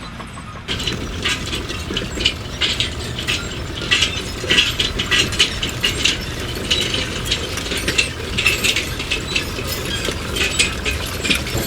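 Rapid, irregular mechanical clicking and clattering over a steady low rumble, starting about a second in.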